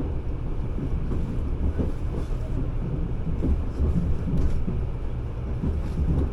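Interior running noise of a 383 series electric express train: a steady low rumble of wheels on rails heard inside the passenger cabin.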